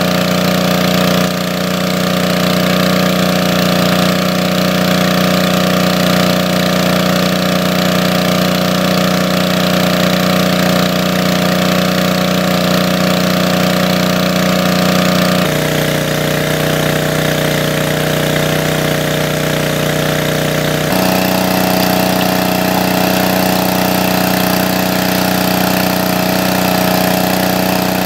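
Small engine-driven water pump running steadily, with the rush of water from its outlet jet. The engine note changes abruptly about fifteen seconds in and again about twenty-one seconds in.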